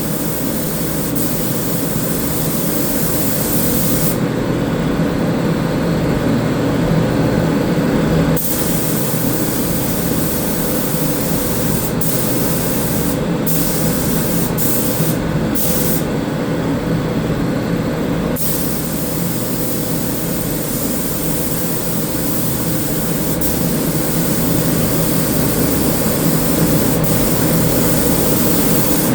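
Air-powered paint spray gun hissing steadily as sealer primer is sprayed. The high part of the hiss drops away for a few seconds twice and briefly a few more times, while a lower steady rush carries on.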